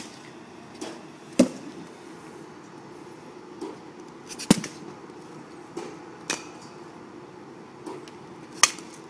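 Baseballs being batted and striking the cage: five loud, sharp cracks at uneven intervals, with fainter knocks between them.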